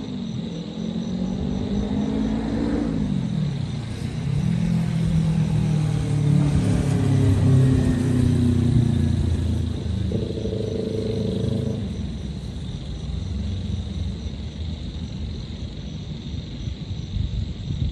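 Road traffic on the city streets below: vehicle engines passing, one rising in pitch and falling away about three seconds in, the traffic loudest around the middle, and another higher engine drone briefly near two-thirds of the way through.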